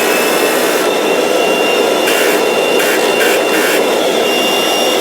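Kirby Avalir upright vacuum running at full speed: a loud steady motor whine over a rough rumbling noise. Near the end it is switched off and the whine starts to fall away.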